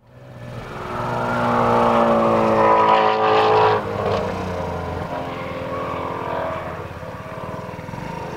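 Shelby GT350R's V8 engine at speed, a car driving past. The engine note climbs in pitch and loudness as it approaches, drops abruptly about four seconds in as it passes, then carries on more quietly as it pulls away.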